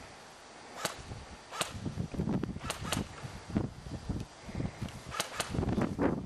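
Airsoft guns firing single shots, sharp snapping cracks at irregular intervals, with three in quick succession about five seconds in.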